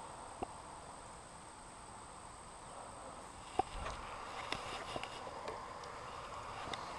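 Faint steady chirring of crickets and other insects. A few light clicks and rustles, the sharpest about three and a half seconds in, with more after it, from someone moving about in grass.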